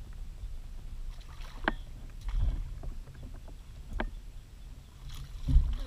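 Handling noise on the hull of a small plastic fishing boat while a fish is netted: sharp knocks about a second and a half in and again about four seconds in, and low thumps between them and near the end, over a low rumble.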